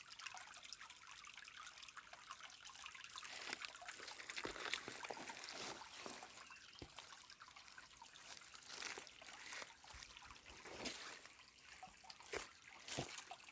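Small stream of water trickling and splashing over stones, faint, with many small splashes through a steady hiss.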